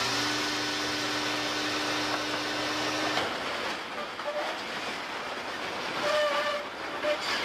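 Passenger rail car crashing into another train in a crash test. A steady horn-like tone of several pitches sounds until it cuts off about three seconds in. Then comes a long, noisy rumble and crunch as the car rides up over the train it struck.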